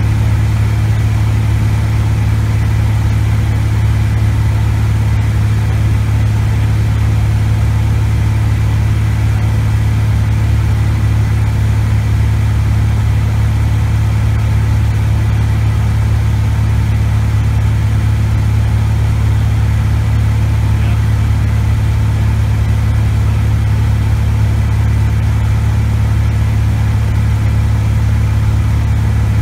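Cessna 180 Skywagon's Continental O-470 six-cylinder engine and propeller running steadily in flight, heard from inside the cabin as an even, unchanging drone.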